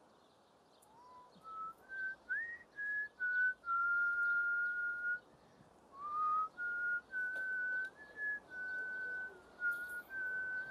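A person whistling a slow tune in single clear notes. Several notes slide up into place, one note is held long about four seconds in, and there is a short break near six seconds.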